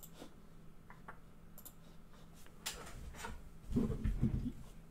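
Faint clicks, then a short run of low bumps and knocks a little before four seconds in: handling noise at a desk.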